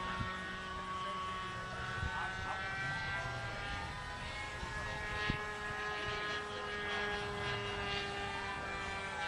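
Small single-cylinder 9cc gasoline engine of a radio-controlled model airplane flying overhead, a steady propeller drone at a constant throttle with small shifts in pitch. A single sharp click about five seconds in.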